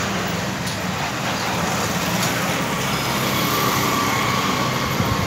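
Steady street traffic noise, a constant rumble of passing motor vehicles, with a faint held tone in the second half.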